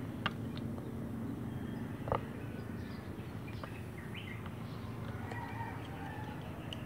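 Chopsticks clicking against a plastic bowl a few times while eating noodles, the sharpest knock about two seconds in, over a steady low background hum with faint bird chirps.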